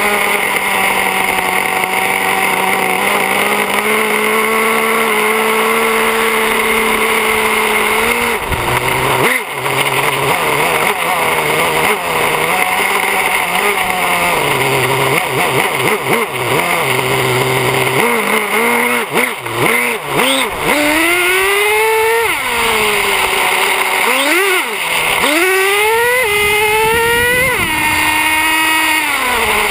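Traxxas Slayer 4x4 RC truck's nitro engine running, heard from a camera mounted on the truck. It holds a steady pitch at first, then wavers, and through the last ten seconds revs up and down again and again as the truck accelerates and backs off.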